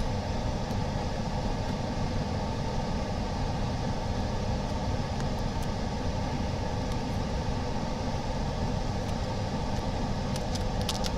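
Steady hum and rush of running workshop equipment, unchanging throughout, with a few faint small clicks near the end.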